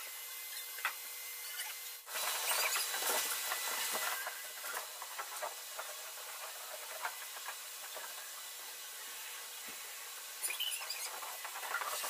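Shop vac running with a steady hiss and scattered small clicks at the nozzle. About two seconds in the sound dips briefly, then it is louder for a couple of seconds before settling back.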